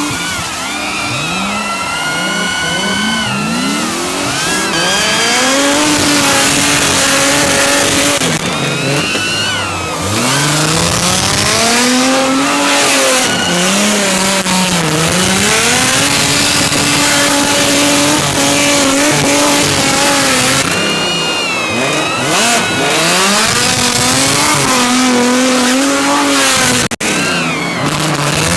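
Drift cars' engines repeatedly revving up and dropping off, with the tyres squealing through the slides.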